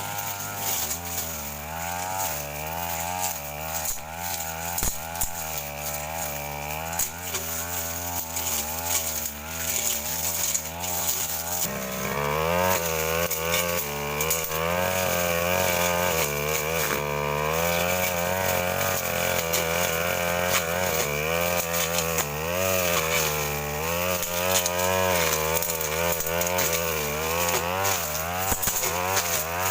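Stihl FR 3001 two-stroke backpack brush cutter running under load, its engine speed rising and falling as the blade cuts through woody scrub. It runs louder and higher from about halfway through.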